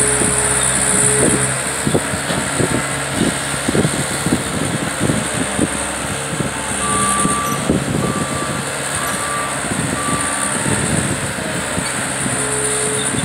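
Caterpillar 247 compact track loader at work: its diesel engine runs steadily while the tracks and bucket clank and knock. A backup alarm beeps about four times starting around seven seconds in.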